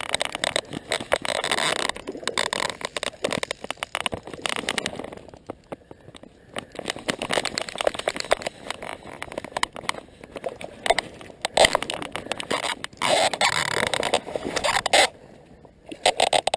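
Fly reel's click drag ratcheting in bursts of rapid clicks while a hooked sea trout is played and wound in, with short pauses between bursts.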